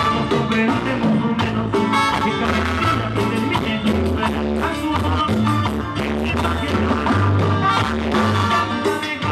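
Live band playing upbeat dance music with a steady beat and a strong bass line.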